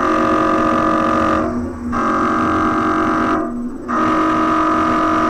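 Emergency Alert System end-of-message signal: three buzzing electronic data bursts, each about a second and a half long, with short gaps between them.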